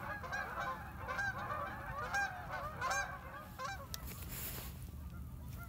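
A large flock of birds flying over, many loud honking calls overlapping, thinning out about four seconds in.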